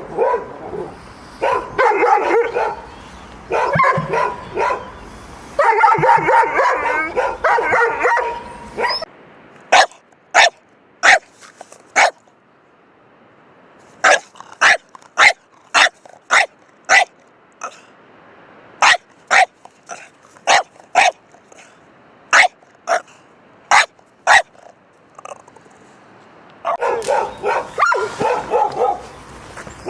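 Dogs barking: about nine seconds of dense, overlapping barking, then a different recording of sharp single barks spaced out, often in pairs or short runs. Dense barking starts again near the end.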